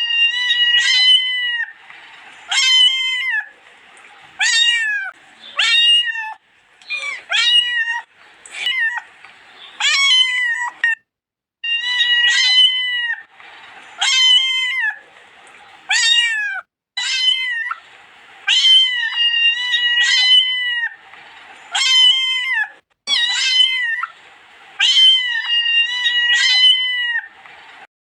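A cat meowing over and over in short, high-pitched calls, often two in quick succession, with brief pauses between groups.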